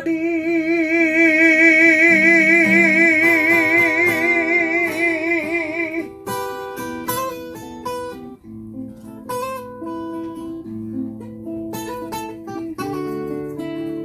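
A male singer holds one long note with a wide vibrato for about six seconds over acoustic guitar accompaniment; when the note ends, two acoustic guitars carry on alone with a picked instrumental interlude.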